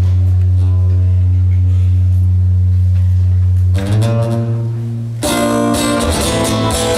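Live amplified acoustic guitar music over a sustained low drone. About four seconds in the chord changes, and a second later a dense, noisy wash of sound comes in over it.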